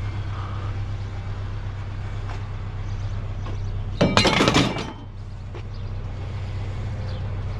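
A vehicle engine idling steadily, with a loud clatter of scrap metal about four seconds in, lasting just under a second, as a piece is set down among the load.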